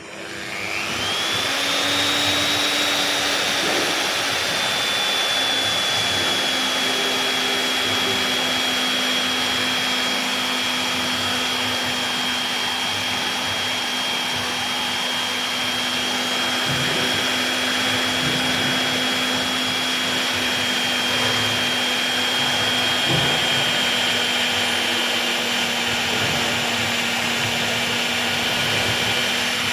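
Electric drill motor spinning up about a second in, its whine rising, then running steadily at speed while drilling holes.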